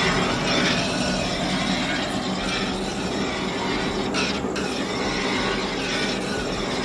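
Steady rushing noise of a large iron wok of ginger, garlic, lemon juice and vinegar cooking over a burner.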